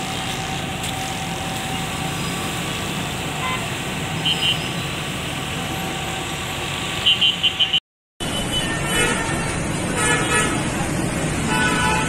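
Steady city traffic noise with car horns tooting, a quick run of short toots about seven seconds in. The sound drops out for a moment at a cut and resumes with traffic noise and more scattered horn-like bursts.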